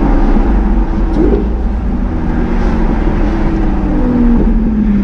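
Lamborghini Aventador's V12 engine running at low speed, a steady low engine note that drops in pitch about four seconds in.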